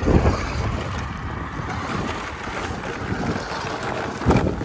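Wind buffeting the microphone, with a toy RC monster truck running over loose dirt and gravel close by. A louder gust swells about four seconds in.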